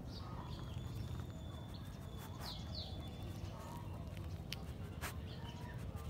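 A husky sniffing and stepping over gravel close up, its paws making scattered clicks and crunches on the stones over a steady low rumble. A bird chirps twice about halfway through.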